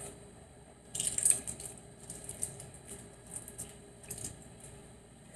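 Shell of a boiled balut duck egg being cracked and peeled by hand: a run of small crackling clicks, loudest about a second in.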